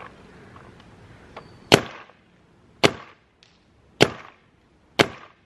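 Four sharp shots from a DLX Luxe paintball marker, spaced about a second apart, each with a short crack and brief tail.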